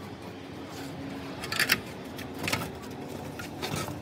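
A few sharp metallic clinks of hand tools and metal engine parts being handled, the loudest a pair about a second and a half in, over a low steady background hum.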